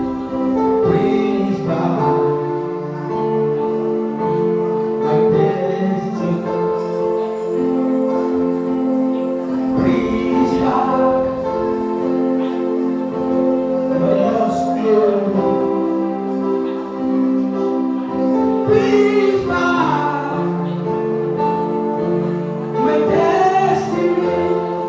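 Gospel worship music: sustained held chords, with voices singing short phrases over them every few seconds.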